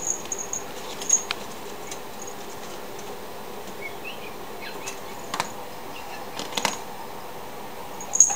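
A ferret scrambling at a wire-mesh barrier: scattered knocks and clicks of its claws and body against the panel and wire, the loudest near the end as it drops back, with short high metallic jingles in between.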